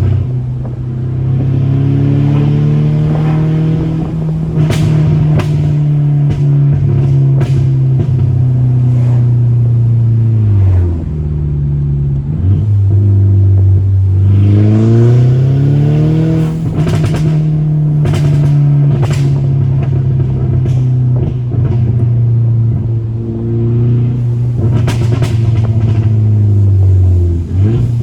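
Volkswagen Mk6 GTI's turbocharged four-cylinder engine pulling through the rev range while driving. Its pitch falls about ten seconds in, climbs again a few seconds later and drops near the end. Scattered sharp exhaust pops and crackles come from the tune's pops-and-crackles map.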